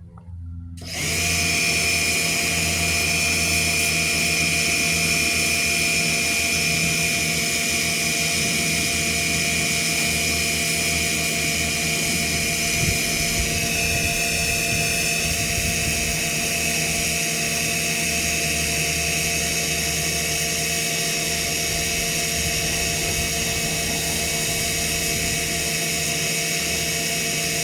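Pressure washer running steadily, coming on about a second in, with a constant high whine over a low hum; the pitch shifts slightly about halfway through.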